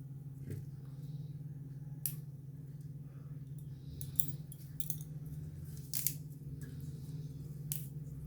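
Scattered light clicks and taps of ingredients being handled, about one every second or two, over a steady low hum.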